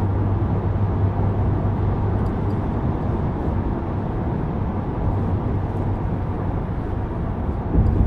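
Steady engine and tyre-on-road noise inside a car's cabin while it drives at speed on a highway, with a low hum that is strongest in the first few seconds. The noise swells briefly near the end.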